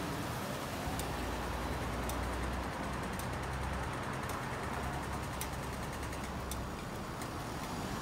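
City street traffic: cars and other vehicles passing with a steady low engine rumble, and a few faint clicks.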